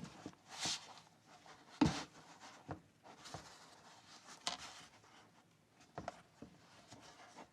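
A tablet being handled and repositioned in a hard plastic and rubber case: faint rubbing and scraping with a few scattered plastic clicks and knocks, the sharpest about two seconds in.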